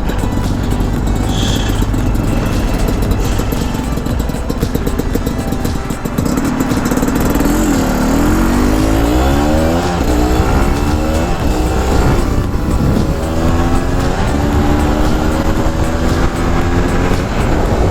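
Honda CRM250R's two-stroke single-cylinder engine running; from about eight seconds in it pulls hard, its pitch climbing and dropping back several times as it shifts up through the gears.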